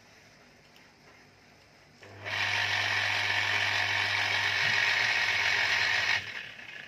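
A 1400 rpm cast-aluminium electric drive motor is switched on about two seconds in and runs up at once, with a steady hum under a loud whirring rush of air. It is cut off near the end and winds down briefly.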